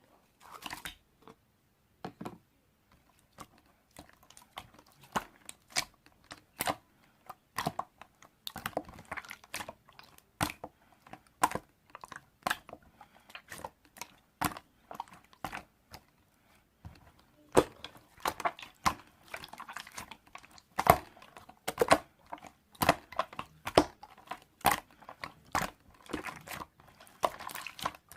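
A run of irregular sharp clicks and taps, sparse at first and coming thick and fast in the second half.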